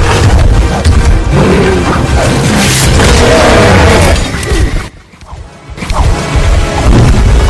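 Action film soundtrack: loud dramatic score with heavy booms and crashing impacts as a giant beast smashes into mounted riders. About five seconds in, the sound drops out abruptly for under a second, then comes back at full level.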